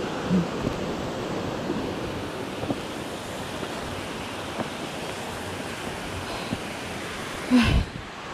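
Steady rushing outdoor noise of wind over the microphone, with a short vocal sound near the end.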